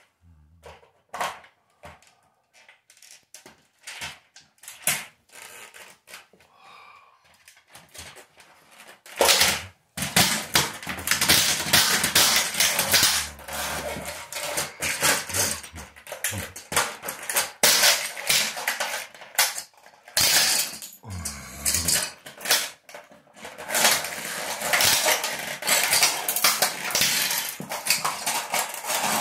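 Plastic toy model engine cracking and crunching under a wedge sandal, its broken pieces clattering on the tile floor. Only scattered clicks and taps at first, then from about nine seconds in a dense, continuous crackle of snapping plastic.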